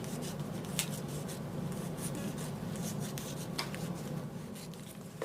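Soft rustling and rubbing of fabric and bonding tape being handled and laid out, with scattered small clicks and scrapes.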